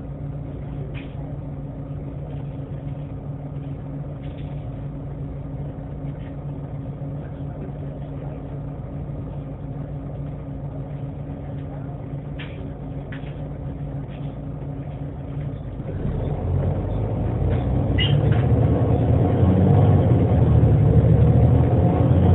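Bus engine idling steadily, with a few faint clicks. About 16 s in it pulls away and grows louder with rising pitch, and a higher steady whine comes in near the end: the noise of a bad differential.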